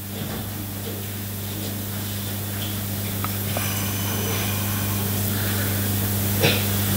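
Steady low electrical hum with a hiss over it, from the microphone and sound system, growing slightly louder.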